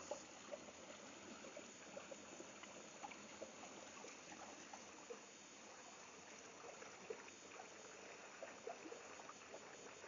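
Small rocky stream spilling over boulders in a little waterfall: a faint steady rush of water with many small plops and drips through it.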